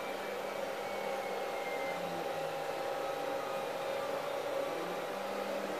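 Steady machine running noise: an even hiss with a constant low hum and a few faint steady tones, with no starts, stops or knocks.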